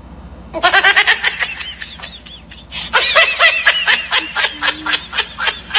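A cat making rapid, high-pitched chirping and chattering sounds while being tickled, in two quick runs, the first about a second in and the second from about three seconds.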